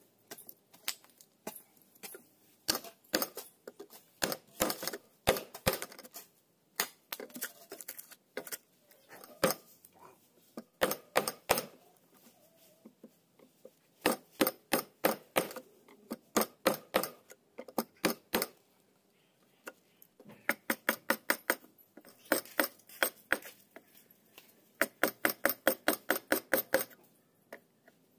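Hammer striking a chisel to chop out a mortise in a clamped block of hardwood. The sharp knocks come as spaced single blows at first, then in clusters and quick runs of about five taps a second in the second half.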